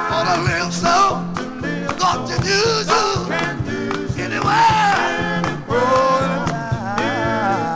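1950s gospel quartet recording: voices singing in the group's style over a band with a bass line and a steady beat.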